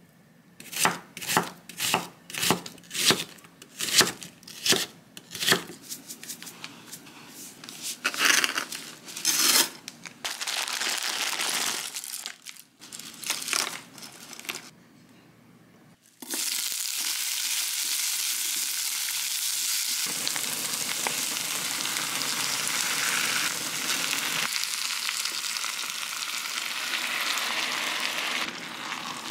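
A knife chopping on a wooden cutting board, about a dozen quick sharp cuts, followed by some rustling and handling. From about sixteen seconds in, a pan of pasta cooking on the hob gives a steady sizzling hiss.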